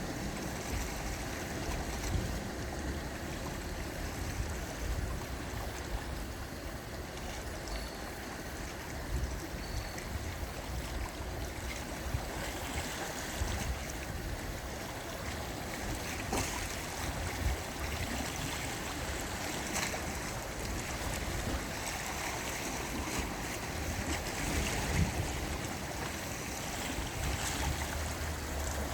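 Gentle sea waves washing in a steady wash of water noise, with patches of low wind rumble on the microphone.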